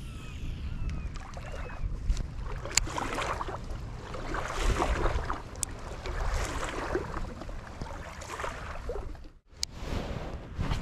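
Wind buffeting the microphone as a low rumble, over water lapping around a kayak, with a few sharp clicks from handling a baitcasting rod and reel. The sound cuts out briefly near the end.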